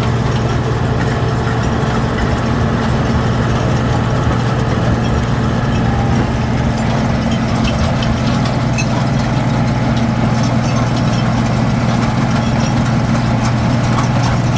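Road milling machine's diesel engine running steadily with a deep, even hum.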